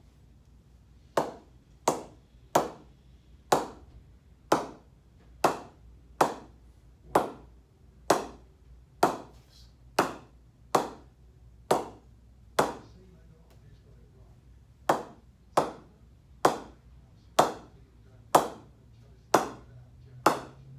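SG English willow cricket bat being struck on its face about once a second, each knock a sharp ping with a short ring, about twenty in all with a brief pause just past the middle: a test of how the bat pings.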